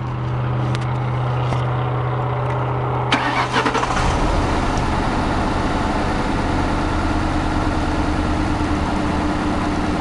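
2006 Ford Crown Victoria Police Interceptor's 4.6-litre V8, heard from inside the car, being cranked by the starter and catching about three seconds in. It then settles into an uneven, pulsing idle: the rough idle with jitter and shake that the car is being checked for.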